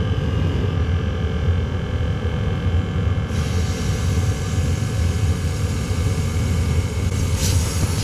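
Chinese diesel heater running on waste oil with a steady low combustion rumble. A faint hiss joins in about three seconds in, and near the end a short blast of compressed air.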